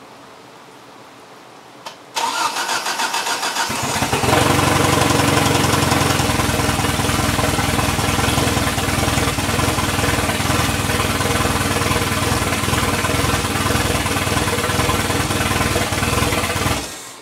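Rebuilt Mazda BP 1.8-litre four-cylinder engine on its first start after the rebuild: a click, then the starter cranks for about a second and a half before the engine catches. It runs steadily for about thirteen seconds and then cuts off.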